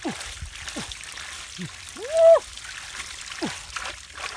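Wet mud and water squelching and trickling as mud is scooped by hand into a plastic crate, with several short squelchy tones that drop quickly in pitch. About two seconds in comes one loud, short tone that rises and then falls.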